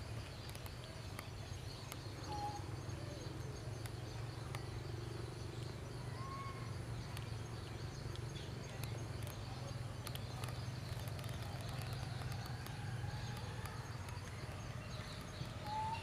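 Outdoor ambience: a steady low rumble, with three short, faint chirps spaced through it.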